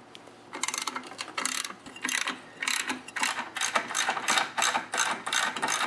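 Hand ratchet wrench with a socket clicking in repeated short bursts, about two strokes a second, as it spins off a nut; the clicking starts about half a second in.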